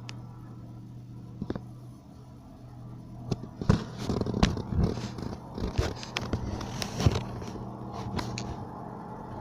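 A steady low drone from unseen aircraft, with a burst of crackling and scraping clicks in the middle, much louder than the drone.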